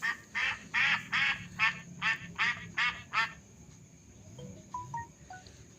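A duck quacking in a quick, even run of about nine quacks that stops a little past halfway, followed by a few faint short tones.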